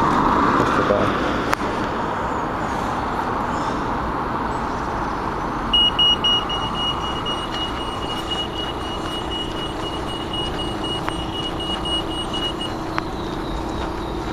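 Road traffic passing, then a pedestrian crossing's signal beeping at a high, steady pitch for about seven seconds, starting about six seconds in. The beeping is the signal that it is safe to cross.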